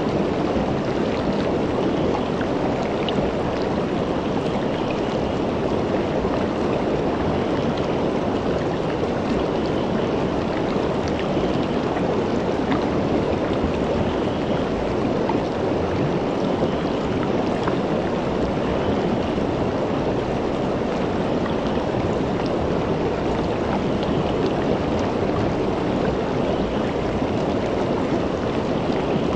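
Shallow river flowing over rocks, a steady rush of water with no letup.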